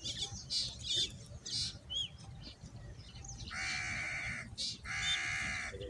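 Birds chirping in short high calls, then two long harsh cries of about a second each.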